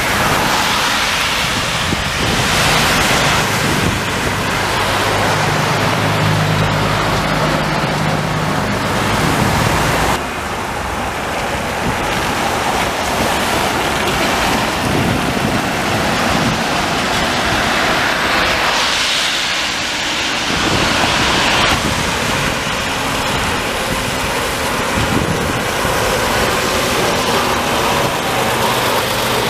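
Historic trams and an Ikarus articulated bus passing on a rain-wet street: wheels and tyres hissing on the wet road with wind on the microphone. A steady low hum runs under the first third, then stops abruptly.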